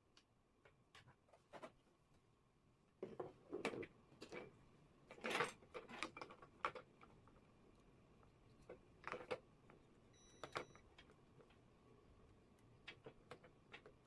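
Scattered light clicks, taps and knocks of an electric kettle's plastic and metal parts being handled and fitted back together, coming in a few short clusters. A brief faint high tone sounds about ten seconds in.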